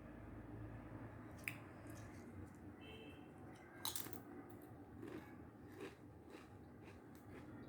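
Close-miked eating: bites and chewing with a few sharp crunches, the loudest about a second and a half in and again about four seconds in.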